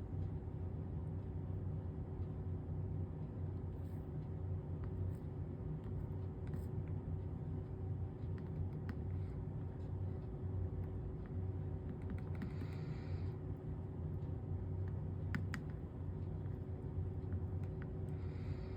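A steady low electrical hum with a faint constant tone, broken by a few light ticks and two brief soft hisses.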